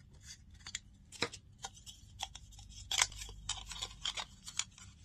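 Plastic camcorder accessories, a lens hood and small parts, being handled and fitted together: a run of small clicks, taps and scrapes, the loudest about three seconds in.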